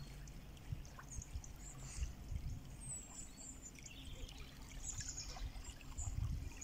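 Small waves washing and trickling at the edge of a sandy beach, a soft steady wash with a low rumble underneath.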